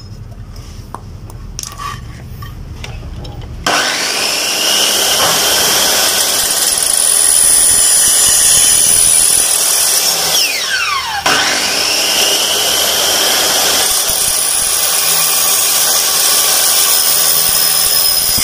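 Makita miter saw with an aluminium-cutting blade notching a Xingfa aluminium T-profile. After a low rumble, the saw starts suddenly a few seconds in with a rising whine and runs. About ten seconds in it spins down with a falling whine, then starts again for a second cut.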